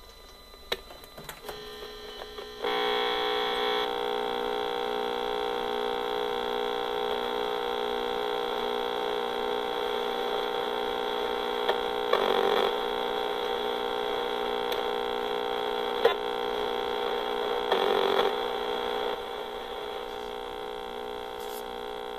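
EMFields Acoustimeter RF meter's speaker buzzing steadily with a many-toned drone that sets in about three seconds in, swelling into a rougher rasp twice and giving one sharp click. It is the meter's audio rendering of microwave emissions from a Raspberry Pi 3B booting with wireless LAN and Bluetooth turned off.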